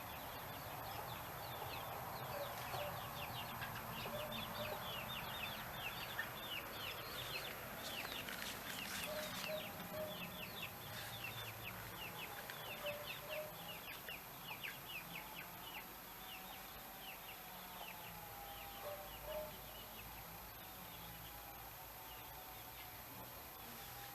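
Chickens clucking, with long rapid runs of short high chirps over the first two-thirds, fading toward the end.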